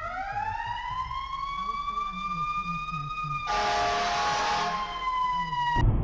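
Fire truck's siren wailing loud and close, its pitch rising for about three seconds and then slowly sliding down. About three and a half seconds in, a blast of about a second from the truck's air horn sounds over it. The siren cuts off just before the end.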